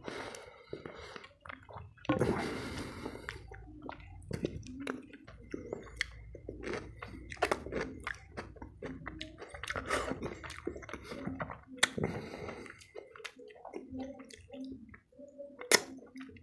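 Fingers mashing and mixing rice with boiled masoor dal on a paper plate, giving wet squishing sounds, mixed with close-up chewing and lip smacks. A louder stretch of squishing comes about two seconds in.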